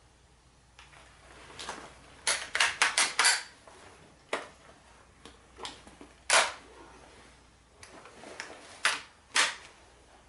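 Sharp mechanical clicks and clacks of a rifle and its gear being handled: a quick run of five about two seconds in, then single clacks, the loudest about six seconds in, and two more near the end.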